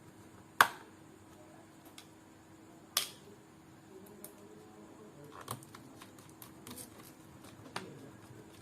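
Small, sharp clicks and taps of laptop screws and a screwdriver against a plastic laptop bottom case: two distinct clicks in the first few seconds, then a scatter of lighter ticks.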